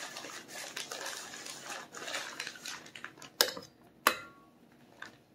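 Plastic bag of powdered sugar crinkling while a metal measuring cup scoops sugar from it. This is followed by two sharp taps, less than a second apart, of the cup against a metal flour sifter.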